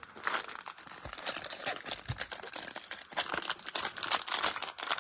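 Foil trading-card pack wrapper crinkling as it is torn open and handled, a dense run of small crackles.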